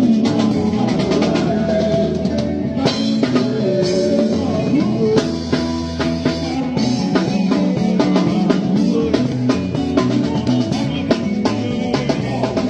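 Band playing at a sound check: a drum kit keeps a steady beat, with bass drum and snare rimshots, over bass and other held instrument notes.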